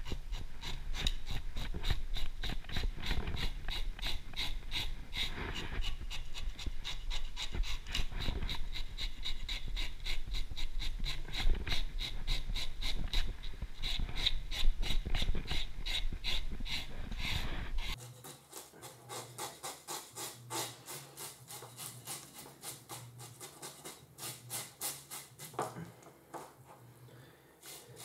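A knife blade scraping the scales off a trout in rapid, rhythmic strokes. The scraping turns much quieter about two-thirds of the way through.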